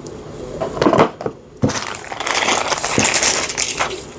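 Tools and sockets being handled in a plastic carry case: a few sharp knocks and clicks about a second in, then a crackly rustle lasting about two seconds with a couple more clicks.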